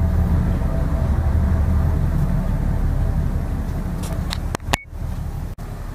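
Steady low rumble with a noisy hiss over it, the background noise of a container ship underway heard from its forecastle deck. A few sharp clicks and a brief cut-out come about four and a half seconds in.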